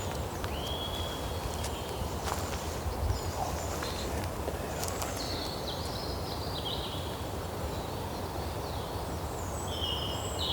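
Outdoor ambience: birds give short whistled calls now and then over a steady low rumble, with a few faint clicks.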